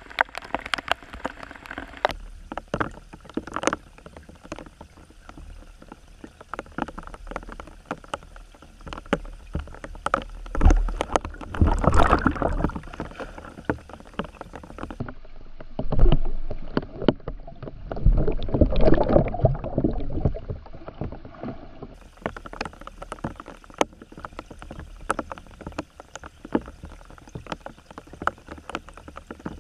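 Water sloshing around a submerged camera, with many sharp clicks and knocks. There are two louder stretches of churning water, about eleven seconds in and again from about sixteen to twenty seconds.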